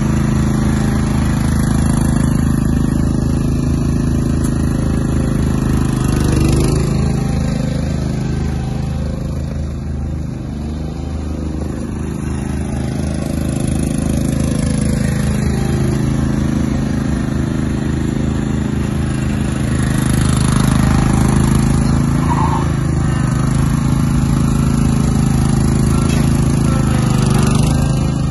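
Toro Wheel Horse ride-on mower's engine running steadily as it is driven around, fading somewhat as the mower moves off and growing louder again as it comes back.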